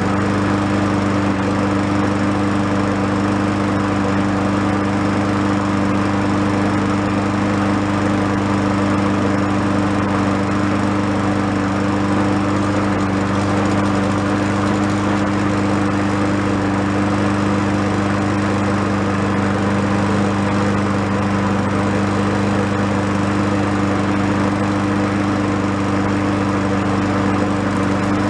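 Craftsman walk-behind lawn mower's single-cylinder engine running steadily at constant speed. Its crankcase is overfilled with oil by about three-quarters of an inch, which the owner suspects is making it smoke.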